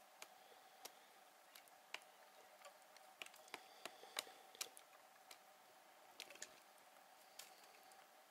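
Male Magellanic woodpecker pecking and chipping at a rotting log: irregular sharp taps, about two a second, loudest near the middle.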